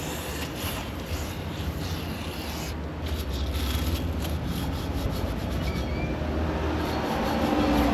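Repeated hand rubbing strokes, like scrubbing a motorcycle part clean, over a steady low hum.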